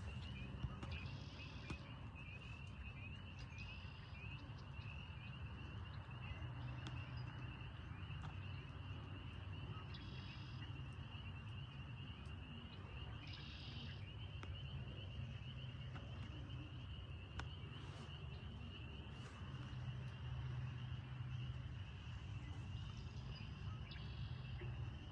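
Faint, steady chorus of calling frogs, a continuous pulsing high trill with occasional separate higher calls, over a low steady hum.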